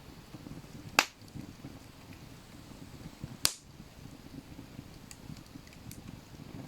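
Campfire wood crackling, with two sharp loud pops about two and a half seconds apart.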